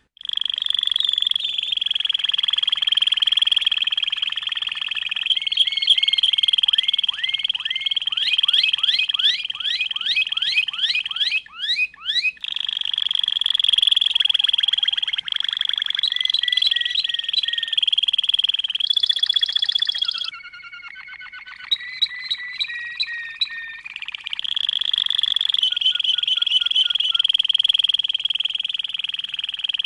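Domestic canary singing a long, continuous song of rolling trills, with a run of quick rising whistled notes about ten seconds in and a short quieter, broken passage about two-thirds of the way through before the trilling resumes.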